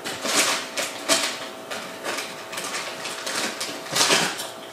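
Foil Doritos chip bag crinkling irregularly as a hand digs into it, with a louder burst about four seconds in.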